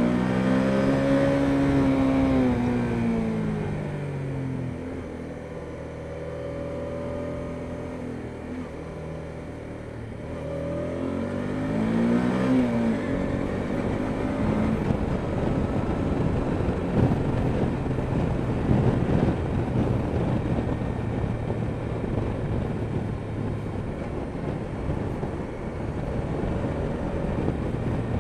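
Honda Deauville NT650V's V-twin engine riding along, its pitch rising and then falling twice in the first half as the throttle opens and eases off. In the second half a steady rush of wind and road noise on the microphone covers most of the engine.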